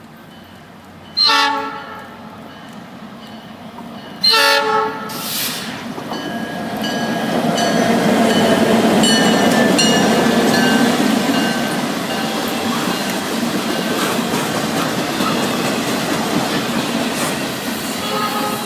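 Norfolk Southern local freight train's locomotive air horn sounding two loud blasts, a short one and then a longer one, followed by the train rolling past with wheels rumbling and clacking over the rails and thin wheel squeals. The horn sounds again, fainter, near the end.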